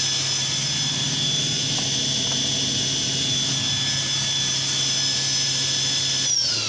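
Cincinnati Milacron Arrow 1250 vertical machining center's spindle running at 8,000 RPM: a steady high whine over a low hum. Near the end the whine starts falling in pitch as the spindle slows down.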